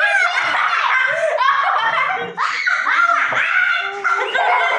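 Several people laughing and giggling together in high-pitched voices, with a few words mixed in.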